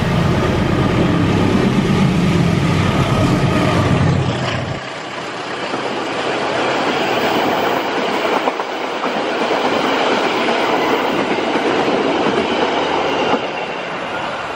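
A locomotive-hauled passenger train passes close on the adjacent track: a heavy low rumble for the first few seconds as the CC201 diesel-electric locomotive goes by, then the passenger carriages rush past with wheels clattering over the rail joints.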